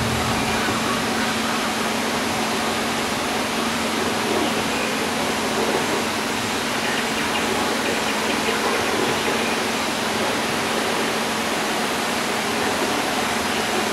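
Steady rushing noise with a low steady hum underneath.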